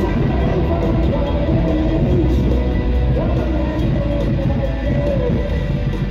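Live rock band playing through an arena's PA: electric guitar lines sliding in pitch over drums and bass, heard from far back in a large reverberant hall.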